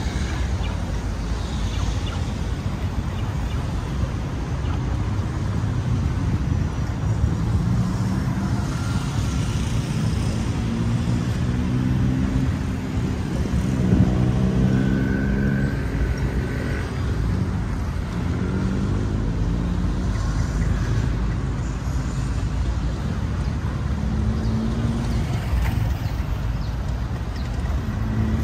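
Road traffic: a steady rumble of motor vehicles, with several engines passing. The loudest of them rises in pitch about halfway through.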